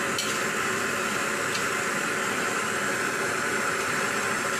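Meat sizzling in a large steel wok over a gas burner: a steady hiss, with a couple of faint scrapes of the metal spatula.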